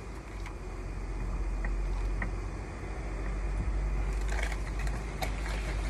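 A steady low rumble throughout, with light clattering and knocks of pots and cooking gear being handled in the last couple of seconds.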